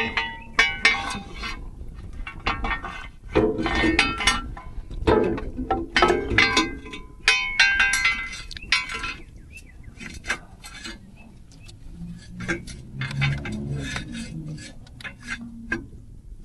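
Metal tools and car parts clinking and clanking against each other in irregular clusters of sharp strikes, some with a brief metallic ring, while flywheel work is under way on an old Buick Regal's drivetrain.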